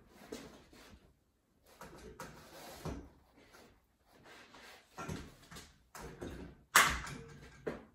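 Pleated concertina blind being handled and pushed against a uPVC door frame, with scraping and rattling in short bouts. A sharp click near the end is the loudest sound, with a smaller knock just after, as the blind is pressed home into its click-fit brackets.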